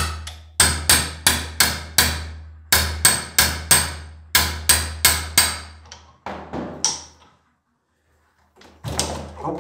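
Light hammer taps on a 22 mm open-end wrench seated on a stuck screw at a pressure washer pump's regulator, to free it anticlockwise. Three quick runs of sharp metallic taps, about three a second, then a couple of weaker knocks and a pause.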